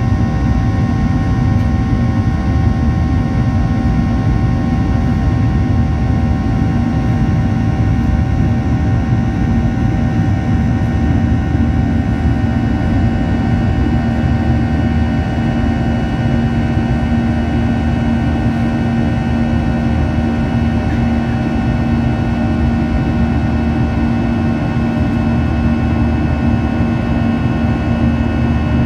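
Boeing 737-800's CFM56-7B turbofan engines at climb power, heard inside the cabin beside the wing: a steady roar with several steady tones layered over it, the fan's buzz-saw tone.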